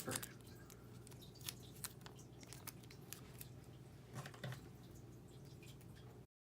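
Faint, scattered clicks and light rustling of cardstock and washi tape being handled while a debossing die is set in place, with a slightly louder cluster about four seconds in; the sound cuts off abruptly near the end.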